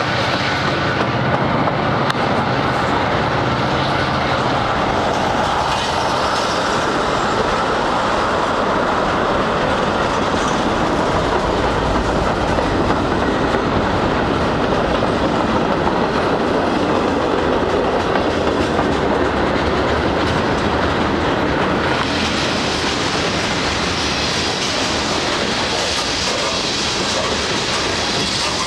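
Freight cars of a long mixed freight train rolling past at close range: a steady rumble with the clickety-clack of wheels over the rails. The sound grows hissier about three-quarters of the way through as tank cars pass.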